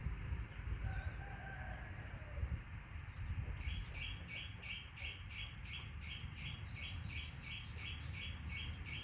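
A high chirping call repeated evenly, about three chirps a second, begins a few seconds in over a low rumble, with a brief faint whistle about a second in.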